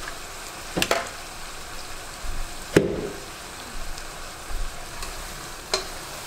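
Lemongrass, onion and tom yum paste sizzling steadily as they sauté in butter and oil in a pot. The pot is stirred, with a few sharp knocks: about a second in, a loudest one near the middle, and another near the end.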